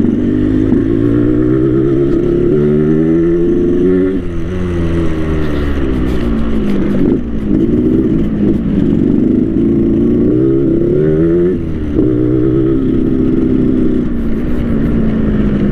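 Yamaha RX King's 135 cc two-stroke single, fitted with an aftermarket 'ngorok setan' growling exhaust, pulling hard while riding. Its pitch climbs and drops back at each gear change, several times over.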